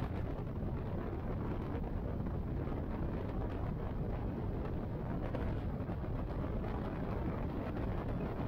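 Motorcycle cruising steadily at highway speed: a constant low rumble of engine, tyres and wind rushing past the microphone, with no change in speed.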